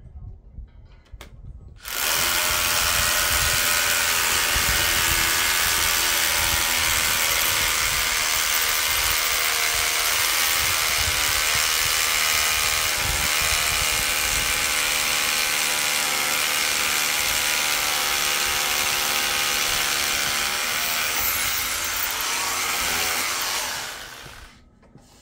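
Cordless hammer drill boring an anchor hole into concrete: one long continuous run of about twenty seconds that starts abruptly about two seconds in and winds down near the end.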